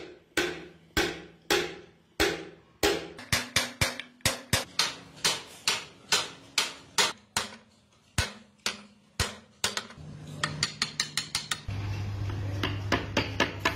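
Hand hammer striking a workpiece in clockmaking, about two blows a second, then quicker runs of lighter taps. Near the end a machine starts with a steady low hum while a few more taps go on.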